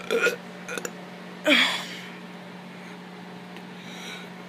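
A kid making short forced burps: two quick ones just after the start and a longer one about a second and a half in that drops in pitch.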